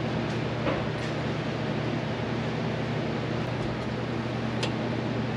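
Steady machine hum and hiss, even throughout, with a few faint metallic clicks of a wrench working on the engine's exposed rocker arms.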